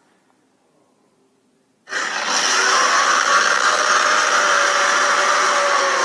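Monster cry sound effect of the kaiju Dagahra, played through a tablet's speaker: a harsh, hissing cry that starts suddenly about two seconds in after near silence and is held steadily for about four seconds.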